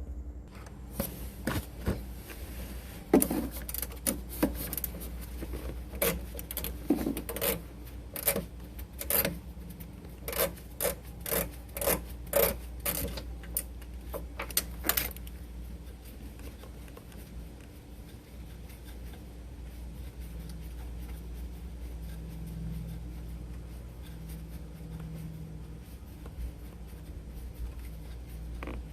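Irregular metallic clinks, taps and rattles of hand tools, a Torx socket and wrench being worked on the alternator mounting bolts, for about the first fifteen seconds, then only a low steady background rumble.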